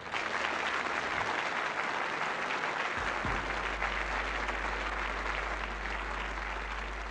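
Audience applauding, breaking out as the song's final guitar chord ends and slowly easing off. A low steady hum comes in about three seconds in.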